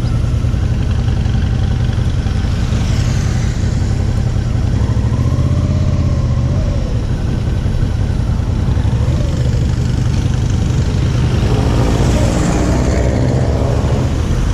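Motorcycle engine running at low speed in slow traffic, a steady low rumble whose pitch rises and falls a few times as the throttle is worked, heard from the rider's position.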